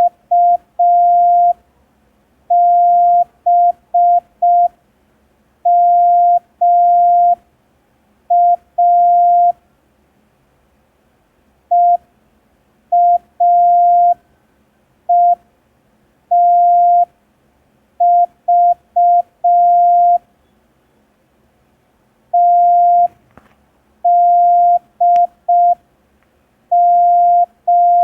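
Morse code practice tone: one steady beep keyed on and off in short dots and longer dashes. It is sent slowly as separate characters, with pauses of a second or two between them, for receiving practice.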